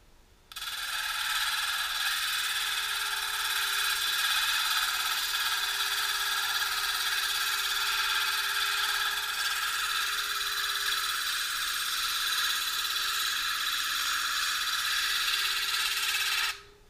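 A stone held against the spinning water-cooled diamond disc of an Ameritool 8-inch lapidary grinder: a steady, harsh grinding hiss with a high ringing edge that starts suddenly about half a second in and stops suddenly just before the end, as the stone is being shaped. A faint steady hum from the grinder runs underneath.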